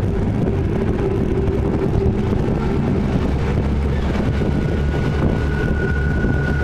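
Outboard motors of an RNLI inshore lifeboat running steadily under way, with wind buffeting the microphone. A faint high steady tone joins about four seconds in.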